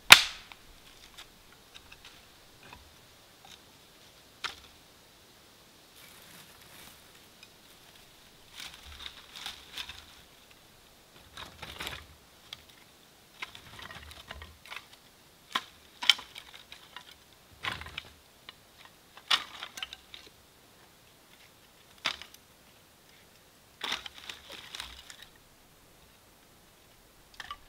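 Dry wood being handled while a fire lay is built: a sharp crack of wood at the very start, then scattered snaps of twigs, rustling and light knocks of split kindling sticks set against each other, with short quiet gaps between.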